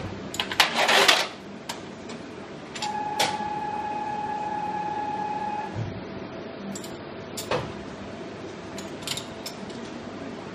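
Metal clatter and clicks as a printing plate is handled and clamped inside a unit of a Komori Lithrone L428 offset press, then a steady beep from the press lasting about three seconds, followed by a few scattered clicks.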